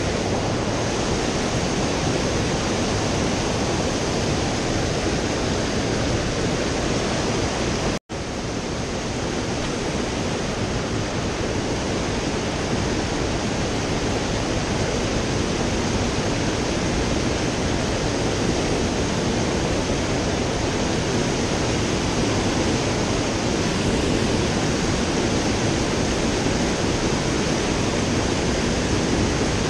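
Shallow rocky trout stream rushing over riffles, a steady roar of white water. The sound drops out for an instant about eight seconds in.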